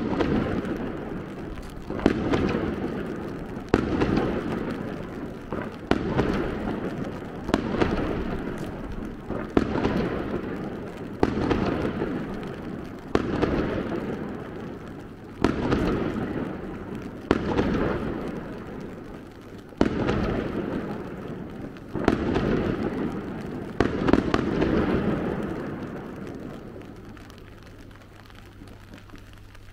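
Aerial firework shells bursting, about a dozen sharp bangs roughly two seconds apart, each followed by a long echoing rumble. The bangs stop about three-quarters of the way through and the last rumble fades away.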